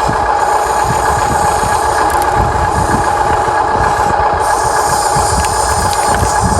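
Electric drive motors and gearboxes of a Huina 1593 RC excavator running with a steady whine, over uneven low crackle.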